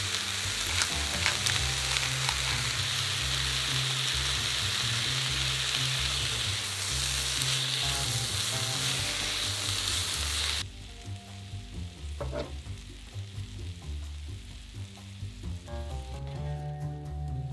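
Broccoli, onion and zucchini sizzling in a hot cast-iron skillet as they are stirred with a spatula. The sizzle cuts off abruptly about ten seconds in, leaving a much quieter stretch with a few scrapes. Background music with a steady bass line runs underneath.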